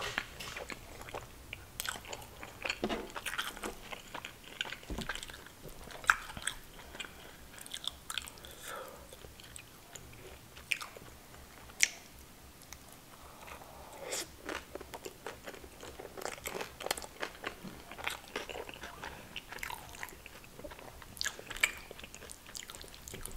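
Close-miked mouth sounds of a person eating chicken saag and curry with naan by hand: wet chewing, lip smacks and irregular sharp clicks, with two louder clicks about six and twelve seconds in.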